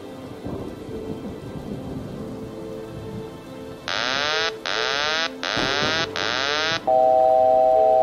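Intro sound bed of rain and thunder over soft sustained music. About halfway in come four short, loud bursts of harsh swept noise in quick succession. A loud steady electronic tone follows for about a second and a half.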